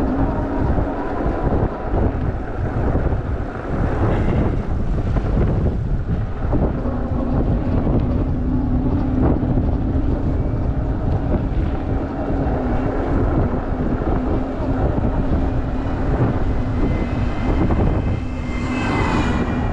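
Wind buffeting the microphone and tyre roar while riding a Super73 electric bike. Under it is a steady whine from the electric motor, which drops out for a couple of seconds about five seconds in.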